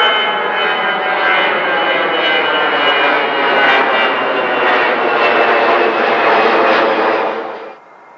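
Twin-engine jet airliner climbing out overhead after takeoff, its engines a loud, steady rush with a whine of several tones over it. The sound cuts off suddenly near the end.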